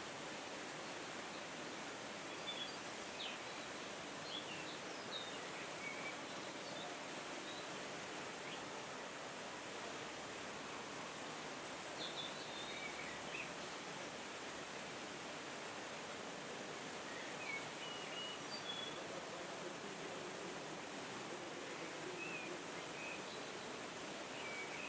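Steady outdoor background hiss with brief small bird chirps scattered throughout, high-pitched and short. No elephant call stands out.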